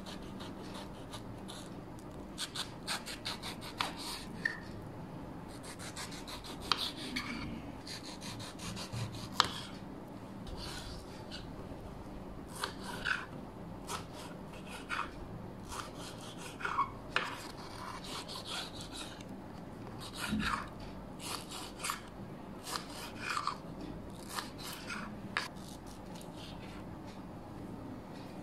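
Kitchen knife slicing through a peeled mango and knocking on a bamboo cutting board, in irregular short taps and scrapes.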